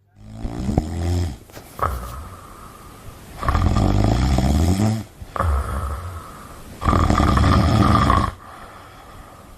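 Pit bulls snoring in their sleep: three long, loud snores about every three seconds, with quieter breaths between.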